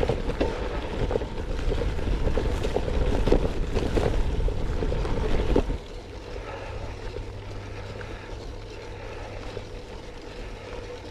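Gravel bike riding over a rough, rutted grass track: wind buffeting the handlebar camera's microphone, with frequent clattering knocks as the bike jolts over the ruts. About six seconds in it turns abruptly quieter, to a steady rolling noise with a low hum.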